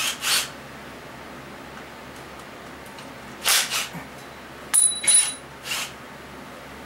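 Hand tools and metal engine parts being handled: a few short scrapes and one sharp metal clink that rings briefly, over a steady low hum.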